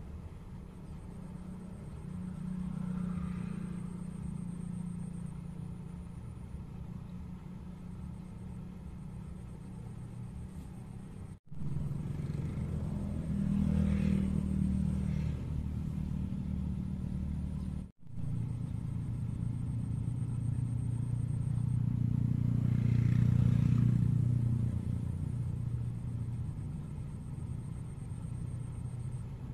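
Road traffic passing nearby: a steady low engine rumble that swells three times as vehicles go by, and cuts out briefly twice.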